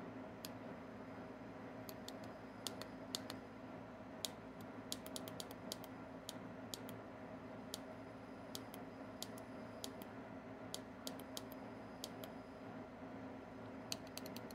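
Small tactile push buttons on a handheld OnStep telescope-mount controller clicking repeatedly as its star menu is scrolled: short sharp clicks, singly and in quick runs, at an uneven pace, over a faint steady hum.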